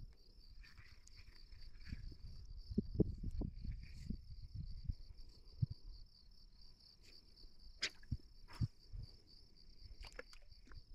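A steady high insect trill, such as crickets, with scattered low knocks and bumps.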